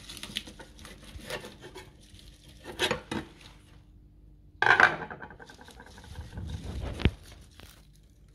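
A head of Nordice crisphead lettuce being cut from a white plastic hydroponic channel with a knife and lifted out. Crisp leaves rustle and crinkle, with scrapes against the plastic, louder rustling and a brief squeak around the middle, and a sharp knock about seven seconds in.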